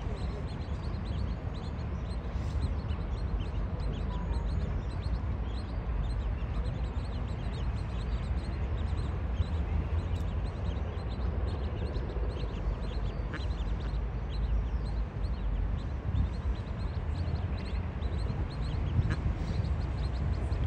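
Mallard ducklings peeping: many quick, high cheeps, several a second and continuous, over a steady low rumble.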